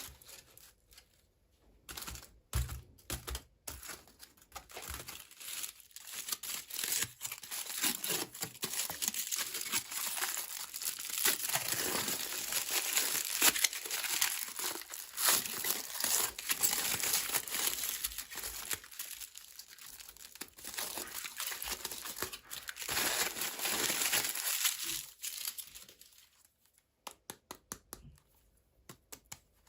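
Packaging being crinkled and torn open by hand while unboxing miniature dolls: a few scattered crackles at first, then a long stretch of dense, continuous crinkling, tapering to a few light ticks near the end.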